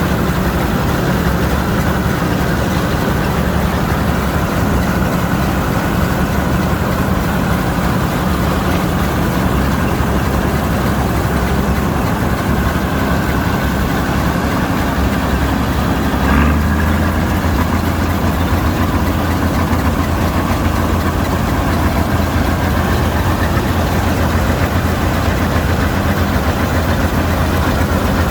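Vistula KZB-3B combine harvester running steadily with a low mechanical drone while harvesting grain. Just past halfway there is a brief knock, after which the low drone is stronger.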